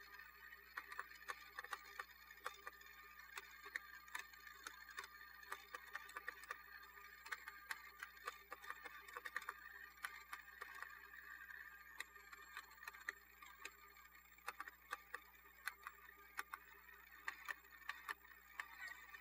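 Radio Shack Armatron toy robot arm working: its single battery motor and plastic gearbox make a quiet, steady whir under irregular clicking from the gears as the arm turns and the gripper lifts.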